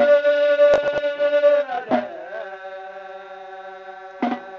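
A singer holding one long note in a Hausa praise song, then dipping down about two seconds in into a second, softer held note; a new sung phrase starts near the end.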